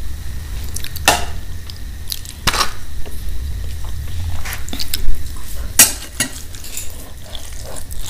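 Metal spoon clinking against a steel plate a few sharp times as food is spooned out, between softer sounds of rice being mixed by hand.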